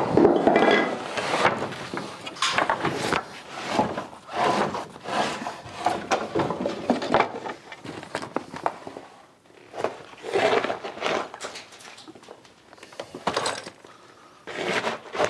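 Old wooden ceiling planks clattering as they are handled, then a metal shovel scraping and scooping brick and mortar rubble off a wooden platform, the debris rattling into a bulk bag in irregular strokes with short pauses.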